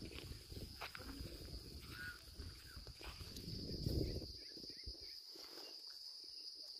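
Faint steady high insect buzz, like crickets trilling, with a low rumbling noise underneath that stops about four seconds in.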